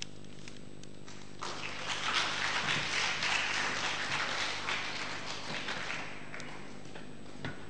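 Audience clapping, starting about a second and a half in and dying away after about five seconds, over a steady low hum.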